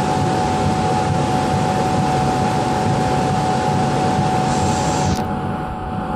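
Laser engraving machine running as its head shuttles over a wooden board: a steady rush of air with a constant mid-pitched tone. About five seconds in there is a click and the higher hiss drops away.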